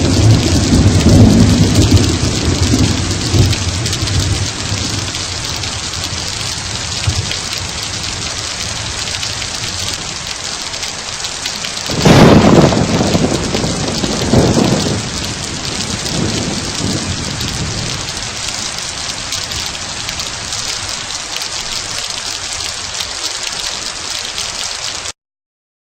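Steady rain with thunder: a rumble dying away over the first few seconds, then a sudden loud thunderclap about halfway through that rolls off over several seconds. The sound cuts off abruptly near the end.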